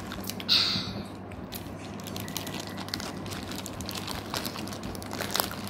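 Crinkling of a plastic Mamee Monster snack-noodle packet as a hand digs into it, with crunching of the dry noodle snack: many short sharp crackles, and one louder rustle about half a second in. A faint steady low hum runs underneath.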